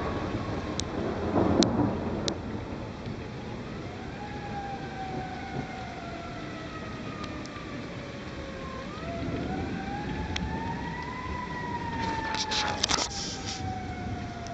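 A siren wailing in slow sweeps, twice rising to a high note and sliding slowly back down. Thunder rumbles loudest near the start, with a crackling burst near the end.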